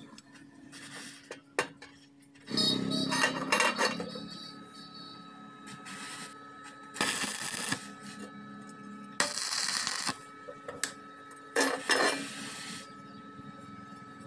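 Stick-welding arc on thin square steel tube: about four short crackling bursts as tack welds are struck, each lasting around a second, over a steady hum.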